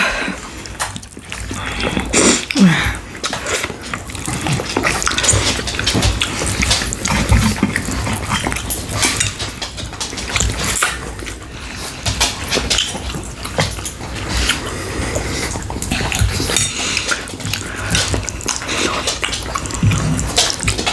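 Close-up chewing and wet mouth smacking while eating, a dense run of irregular clicks and squelches.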